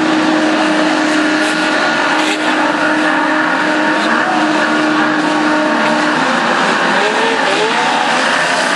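Several banger-racing cars' engines running hard together as the pack races and jostles, a dense steady engine drone with revs rising and falling in the second half.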